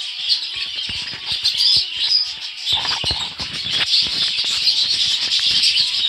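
Many budgerigars chattering and warbling together in a dense, continuous twitter. Scattered short clicks and rustles come in from about a second in and grow busier after about three seconds.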